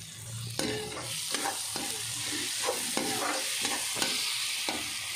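Perforated steel slotted spoon stirring and scraping roasted peanuts, peas, carrots and tomato around a hot kadhai, with repeated short scrapes over a steady frying sizzle that picks up about a second in.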